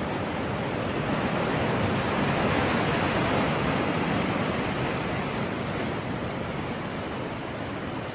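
Ocean surf: a steady rush of breaking waves that swells a little about two seconds in and slowly eases off.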